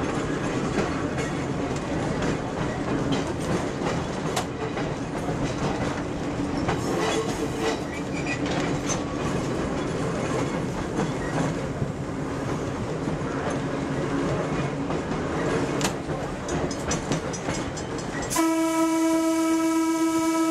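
Red Arrow Lines trolley car 66 running along the track, its wheels clicking over the rail joints under a steady rumble. About eighteen seconds in, its horn sounds one long steady blast of about two seconds as the car nears a road crossing.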